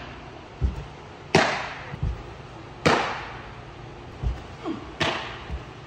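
Pitched baseballs smacking into a catcher's leather mitt three times, each a sharp pop with a decaying echo, and each preceded by a dull low thud about two-thirds of a second earlier.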